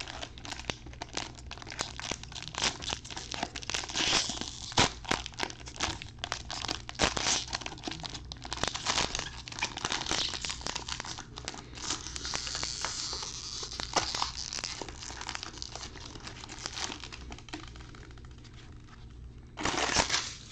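Foil trading-card pack wrapper crinkling and tearing as it is ripped open by gloved hands, in many irregular crackles. A louder burst of rustling comes near the end.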